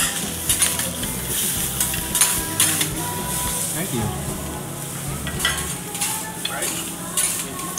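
Food sizzling on a steel teppanyaki griddle, with frequent short scrapes and clicks of a metal spatula against the plate.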